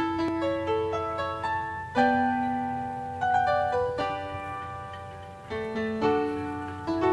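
Background piano music: slow, gently fading notes and broken chords, with a new chord struck about every two seconds.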